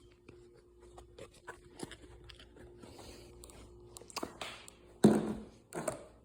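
Small plastic slime containers being handled and moved about: light scrapes and clicks, with a louder knock about five seconds in and a smaller one just after.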